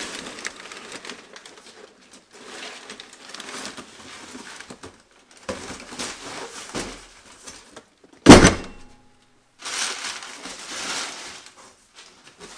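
Cardboard boxes rustling and scraping as they are moved about, with one loud thud about eight seconds in as a heavy carton of about 7.5 kg is set down on the workbench.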